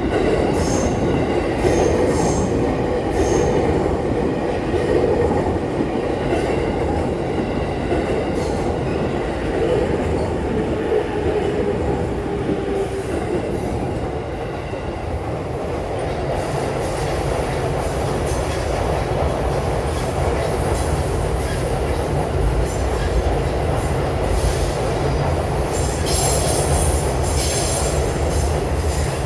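A JR East electric commuter train passing close by over a level crossing: a steady loud rumble of wheels on rail for the whole span, with repeated clicks of the wheels over rail joints and a faint tone in the first half.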